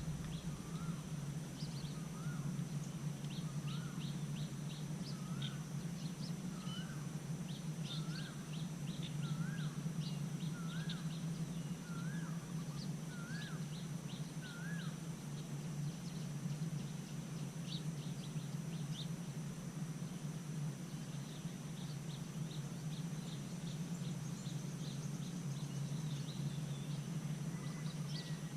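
Birds calling: one bird repeats a short rising-and-falling call about once a second for the first half, while others chirp higher and more quickly throughout. A steady high-pitched tone and a low steady hum run underneath.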